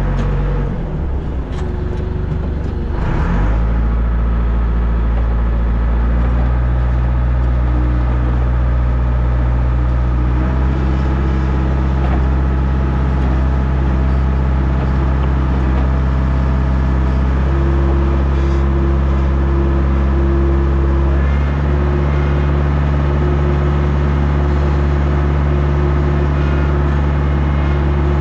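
Diesel engine of heavy construction equipment running steadily, its note dipping briefly in the first few seconds and stepping to a slightly different pitch about ten and again about twenty-one seconds in.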